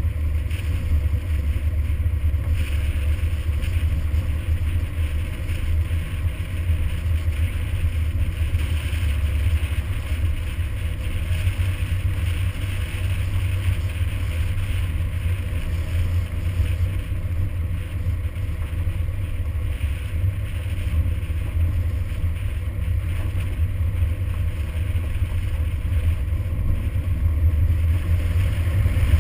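Toyota Hilux pickup driving steadily along a gravel track: a continuous low rumble of engine and road noise with a hiss of tyres on gravel.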